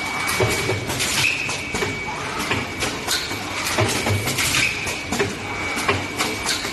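Automatic ampoule blister packing machine running: rapid mechanical clicking and clacking with recurring low thuds, and a thin high whine that comes and goes.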